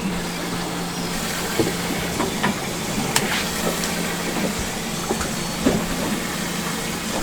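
Boat engine idling steadily under a hiss of wind and water, with scattered light clicks and knocks.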